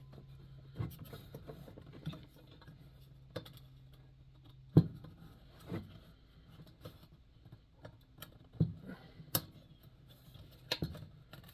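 Scattered light metallic clicks and taps of Coleman 220J lantern parts being handled and fitted by hand, with a sharper knock about five seconds in and another near the end.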